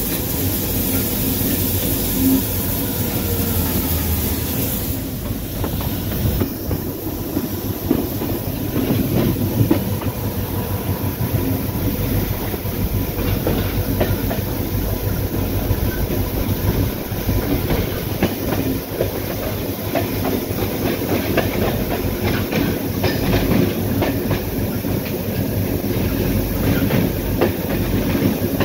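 EMD diesel-electric locomotive rolling through a rail yard, heard from aboard: wheels clicking over rail joints and points above a steady low rumble. A high hiss stops about five seconds in.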